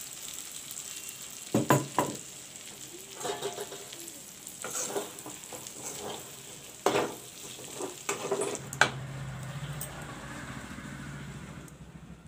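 Metal spatula stirring and scraping through chicken fry in a metal kadai, with six or so sharp scrapes against the pan. Underneath is a steady sizzle from the still-hot oil after the flame has been turned off.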